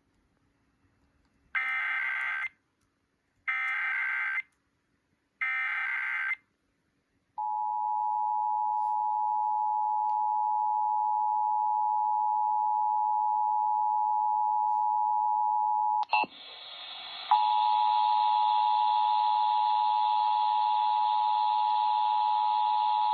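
Emergency Alert System test: three short buzzing SAME header data bursts about a second apart, then the steady two-tone EAS attention signal (853 and 960 Hz). About 16 seconds in the tone cuts out for a moment and returns harsher, with many added overtones.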